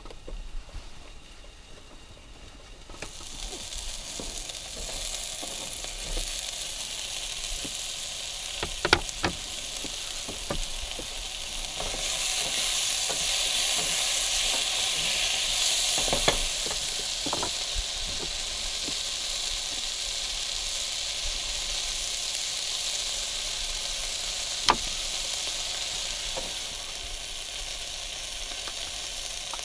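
Vegetables frying in a pan, a steady sizzle that starts about three seconds in and grows louder for a few seconds around the middle. A wooden spoon knocks against the pan a few times as the food is stirred.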